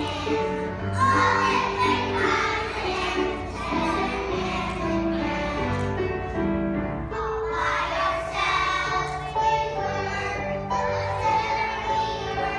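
A group of young children singing a song together over musical accompaniment, with held notes and a steady beat.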